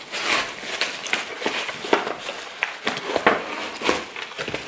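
Paper tearing and crinkling as a gift box is pulled open and its tissue paper handled: a run of crackly rips and rustles.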